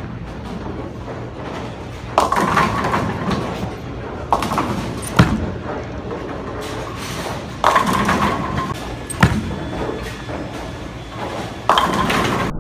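Bowling alley noise: several sudden heavy impacts, some followed by about a second of clattering, from bowling balls and pins, over a steady background din.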